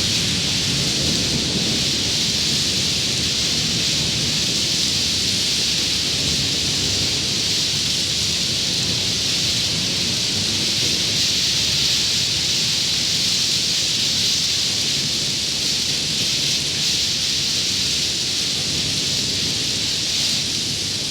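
Recorded rainstorm: steady heavy rain with a low rumble of thunder underneath, without music.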